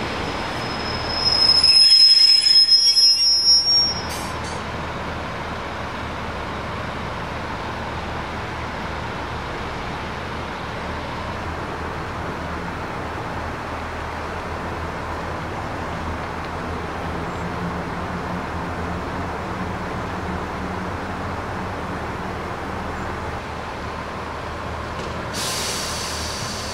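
Pacer diesel multiple unit's wheels squealing on the curved track: a loud, high-pitched ringing squeal about a second in that lasts some three seconds. It is followed by the steady rumble of the train running, with a low engine hum in the middle and a fainter squeal near the end.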